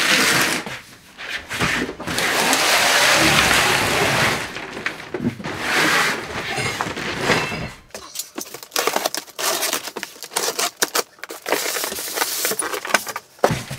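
A large cardboard box being handled and opened: long scraping, rustling noise in the first half, then a quick run of crackles and clicks as the polystyrene packing and bagged parts inside are handled.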